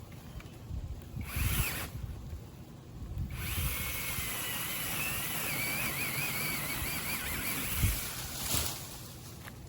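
Cordless mini chainsaw's electric motor. It gives a short burst about a second in, then runs for about five seconds with a whine that wavers slightly in pitch, and gives one more brief burst near the end.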